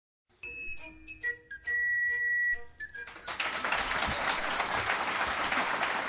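A short electronic jingle of steady held tones and beeps, followed by audience applause that starts about three seconds in.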